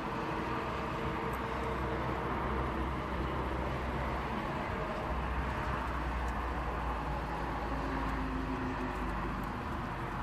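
Outdoor street ambience: cars driving past on the road below, with a steady low hum and hiss.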